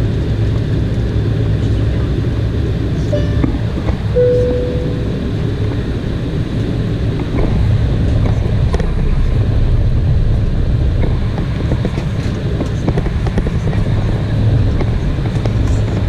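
Cabin noise of an Embraer E190 taxiing: its GE CF34-10E turbofans running at low taxi power as a steady low drone, with light knocks and rattles from the cabin. A brief tone sounds about four seconds in.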